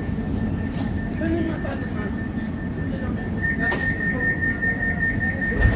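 Running noise inside a CAF Urbos 3 tram: a steady low rumble with a high whine of unchanging pitch that grows louder about three seconds in, and a single thump near the end.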